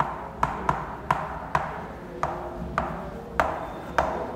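About nine sharp taps at an uneven pace of roughly two a second, each followed by a short ring: writing strokes on a classroom board.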